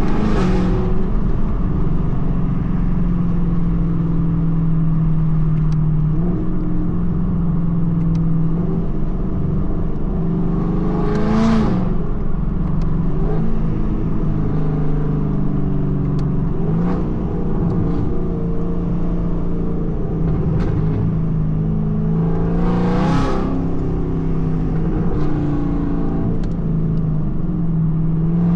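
2024 Ford Mustang GT's 5.0-litre V8, breathing through aftermarket Kooks headers, droning steadily while the car is driven. A few brief louder whooshes come and go about every eleven seconds.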